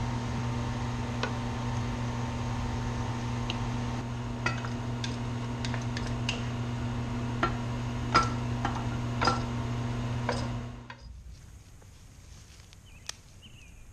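Wooden spatula knocking and scraping in a frying pan as sliced venison backstrap with mushrooms and onions is stirred, scattered clicks over a steady low hum. About eleven seconds in the hum and clicks cut off and it turns much quieter.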